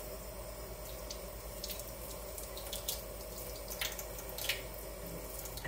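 Kitchen faucet running into a sink as seeds from a roasted poblano pepper are rinsed off, with a few small splashes.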